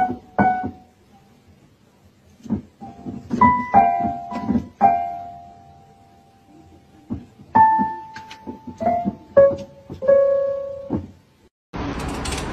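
Keyboard notes pressed by a cat's paws: a couple of repeats of the same note at first, then scattered single notes and small clusters, one held for about two seconds. A steady rushing background noise takes over near the end.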